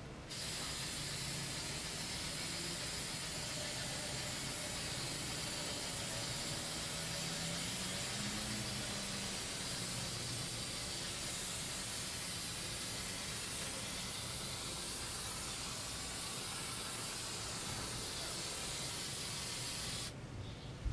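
Aerosol spray paint can spraying in one long, unbroken hiss. It starts just after the beginning and cuts off suddenly about a second before the end.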